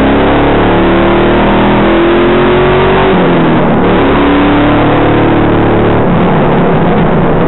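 Race car engine heard from inside the cabin under hard acceleration: the revs climb, drop sharply at an upshift about three seconds in, then climb again, with another change in the note about six seconds in. Loud wind and road noise run under it.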